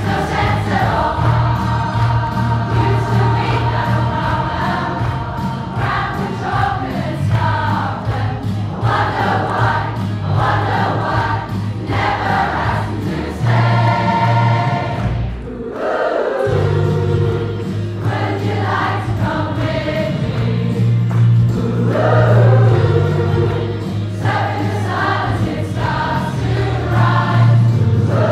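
Large choir of mostly women's voices singing a pop song in harmony over a steady low bass line, with a short break in the singing about halfway through.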